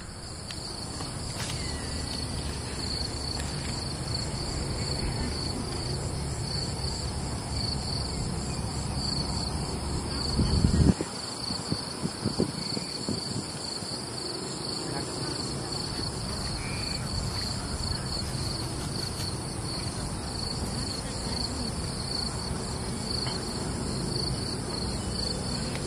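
Insects chirping in a steady, pulsing high trill throughout, over a low outdoor rumble that cuts off about eleven seconds in. A few loud knocks sound around the middle.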